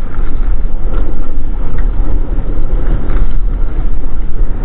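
Wind buffeting the camera's microphone: a loud, steady low rumble.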